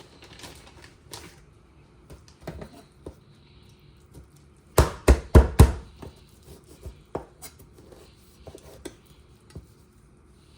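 Knife chopping raw quail: four quick, heavy chops close together about halfway through, among lighter knocks and handling sounds.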